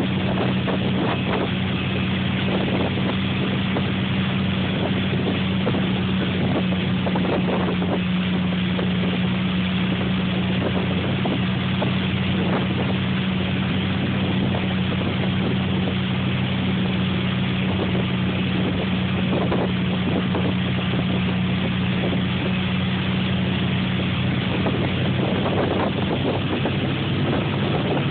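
Motorboat engine running at a steady towing speed, a constant low hum that holds its pitch throughout, over the rush of the churning wake and wind across the open stern.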